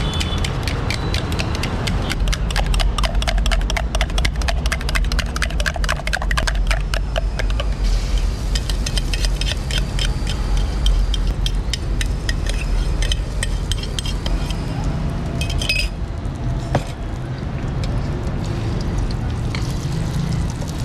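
Steel spoon beating eggs in a steel tumbler: fast, rapid metallic clinking for the first seven or eight seconds, then only scattered clinks. A steady low rumble runs underneath.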